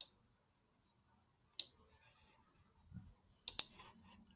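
Computer mouse clicks: one at the start, another about a second and a half in, and a quick double click about three and a half seconds in.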